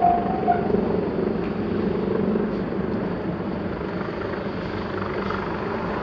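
Japanese railway level-crossing warning bell dinging about twice a second, then cutting off less than a second in as the crossing clears. After it comes a steady low rumble of background noise.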